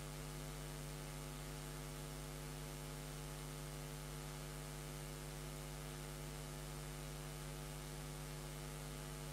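Steady electrical mains hum with a light hiss underneath, unchanging throughout.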